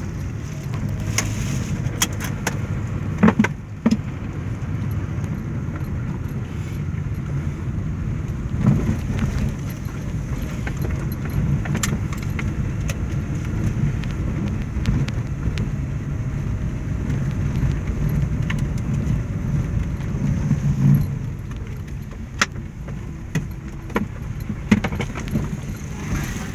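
Car cabin noise while driving: a steady low engine and road rumble, with scattered sharp clicks and rattles as the car rolls over a rough dirt road.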